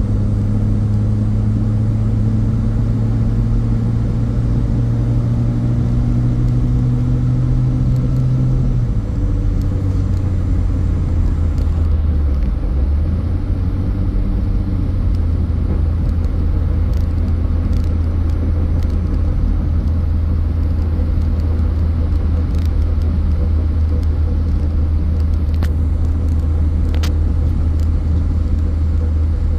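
Car driving on the road: a steady low engine and road rumble whose engine note rises slowly, then drops a step about nine seconds in.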